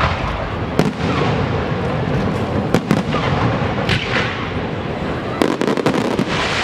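Fireworks going off: a continuous dense noise broken by sharp bangs about a second in, around three and four seconds, and a quick run of bangs near the end.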